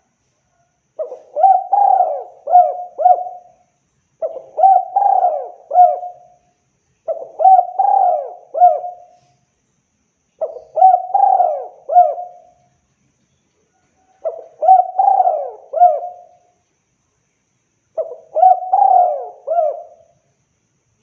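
Spotted dove (tekukur) cooing: six repeated phrases of several notes, one every three to four seconds.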